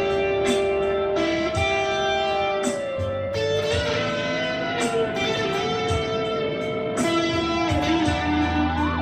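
Instrumental smooth jazz background music: a sustained, gliding lead melody over held chords and a bass line.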